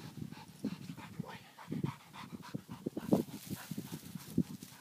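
A spaniel panting in short, irregular breaths.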